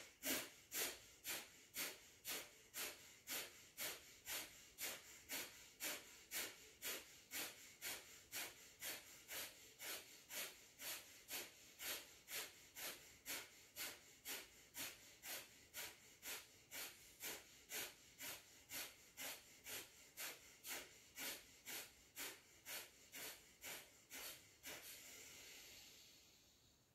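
Rapid, forceful exhalations through the nose in a steady rhythm of about two a second, a round of some sixty strokes of kapalabhati-style 'impulse' breathing, ending about 25 seconds in with a softer, longer breath that fades.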